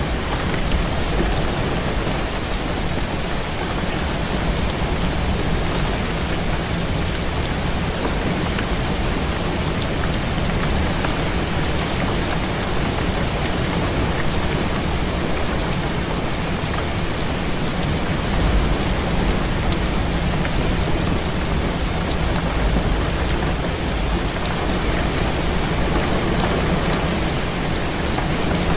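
Heavy rain beating on a window: a steady, dense hiss of drops. A low rumble swells in the background a little past halfway through.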